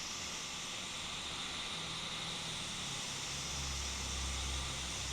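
Hot air rework station handpiece blowing a steady hiss of hot air with its fan running. A low hum joins about three and a half seconds in.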